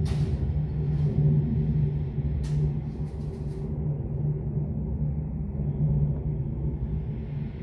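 Low, steady rumble of a Boeing 747's four jet engines as the aircraft climbs away after takeoff, with a few brief crackles in the first half.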